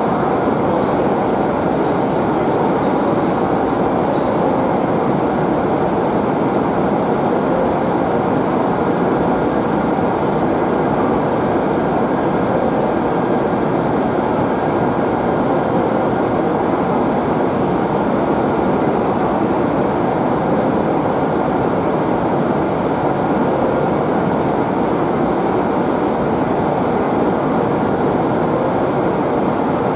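Steady, even rumbling noise of Joetsu Shinkansen trains at a station platform, with a train slowly pulling in toward the platform.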